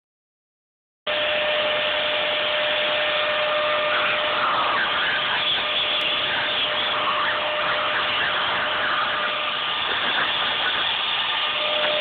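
Hand-held hair dryer running on a steady blow: a constant rush of air with a steady whine, starting abruptly about a second in.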